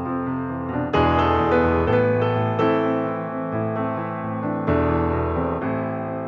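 Background piano music: slow sustained chords, a new chord struck about every one to two seconds.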